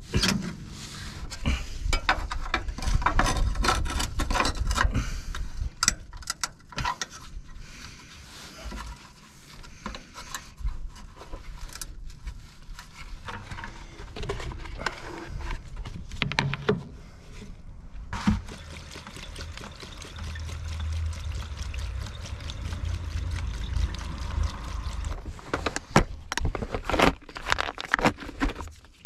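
Hand tools clicking and knocking against a van's underside. Then a steady rush of gasoline being poured from a can into the fuel filler neck, refilling the new tank. A few sharp clicks near the end.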